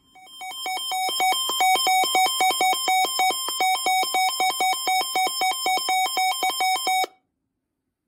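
Emergency alert attention signal: a fast electronic beeping, about five beeps a second, alternating between two pitches with a buzzy, square-wave edge. It swells in at the start and cuts off suddenly about seven seconds in.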